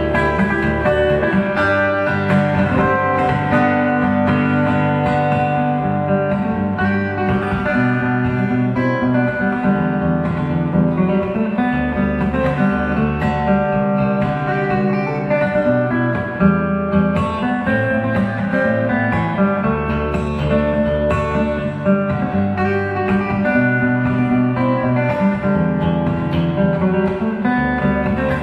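Solo steel-string acoustic guitar played fingerstyle, with low bass notes moving under a picked melody at a steady level.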